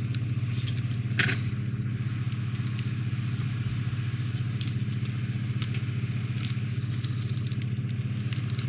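Scattered light clicks and scrapes of a small screw being driven into a plastic model part with a screwdriver, with one louder scrape about a second in, over a steady low hum.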